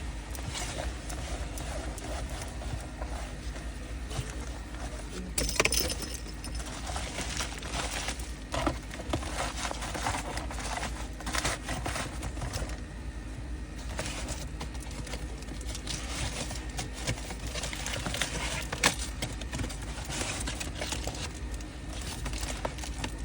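Irregular clicks, taps and light rattles of small objects being handled and unpacked, with a louder clatter about five seconds in and a sharp tick near the end, over a steady low hum.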